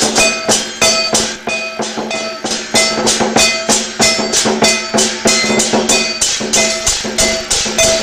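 Lion dance percussion: drum, gong and cymbals struck in a steady, fast rhythm, with metallic ringing carrying on between the strokes.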